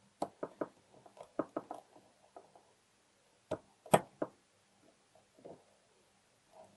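Small metal clicks and taps from the internal parts of a Glutz tubular-frame mortise lock being handled and fitted into the lock case by hand. They come irregularly, with the sharpest knock about four seconds in.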